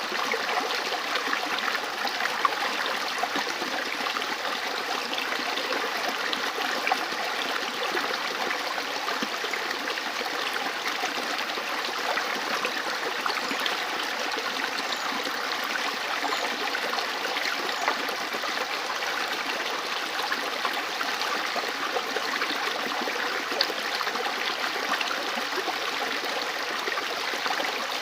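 River water flowing steadily, a continuous rush with many small splashes and no pause or change.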